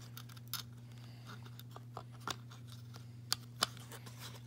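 Sharp clicks and taps of hard prop parts being handled as a cosplay gauntlet's pieces are fitted together, the two loudest close together near the end, over a steady low hum.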